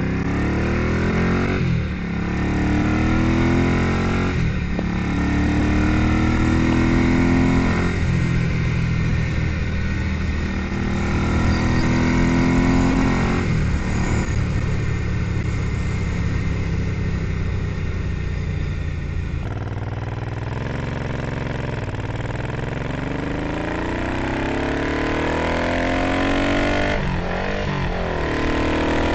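A 1978 Ducati 900 bevel-drive V-twin engine is under way. It revs up through the gears, with a short break in the rising pitch at each upshift, then holds a steadier pitch. About twenty seconds in the pitch drops away as the throttle eases, and it pulls up again near the end.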